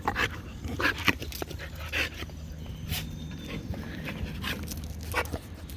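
A dog panting, short irregular breaths, over a low steady hum.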